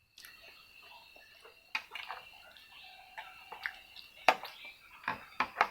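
Someone eating from a dish: a scatter of sharp clicks and short clinks of a utensil against the dish, with the loudest one about four seconds in and several quick ones near the end. A steady high-pitched whine runs underneath.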